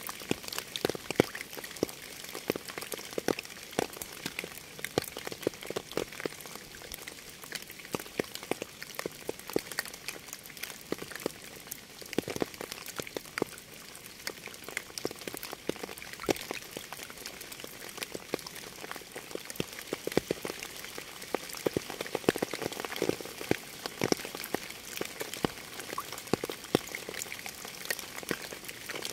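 Rain falling steadily: a constant hiss dotted with many sharp, close drop strikes.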